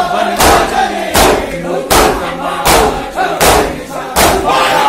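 Shia mourners doing matam: a crowd of men beating their chests in unison, a sharp slap landing about every three quarters of a second. Over the slaps, many men's voices chant and call out together.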